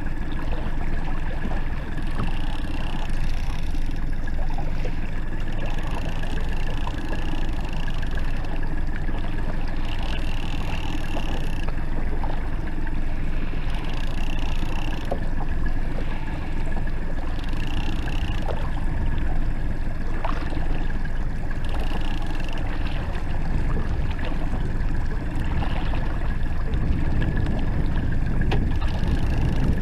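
Small outboard motor running steadily at trolling speed, with the wake churning and splashing behind the stern.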